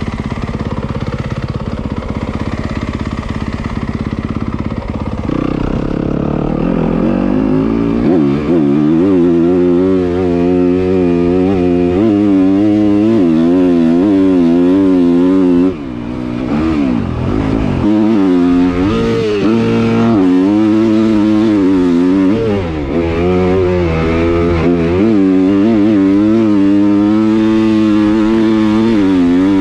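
Yamaha 250 motocross bike engine idling at first, then pulling away about five seconds in and being ridden hard. The engine pitch climbs and falls repeatedly with throttle and gear changes, and the throttle is chopped briefly about two-thirds of the way through.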